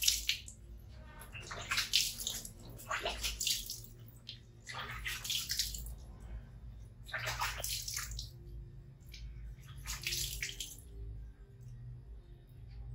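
Water splashing and pouring off a baby monkey as it is washed by hand over a plastic basin, in about six separate splashes, each a second or two apart.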